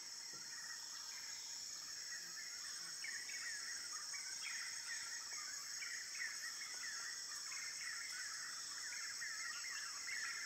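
Rainforest ambience: a steady high-pitched insect drone with many short, repeated bird chirps over it, getting busier a few seconds in.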